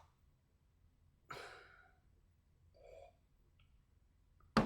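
A person sighs once, a short breathy exhale about a second in, followed by a faint low murmur. A sharp click comes just before the end.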